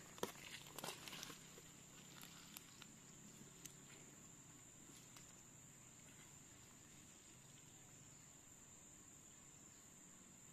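Near silence outdoors: a faint, steady high-pitched insect drone, with a few light clicks and rustles in the first second and a half.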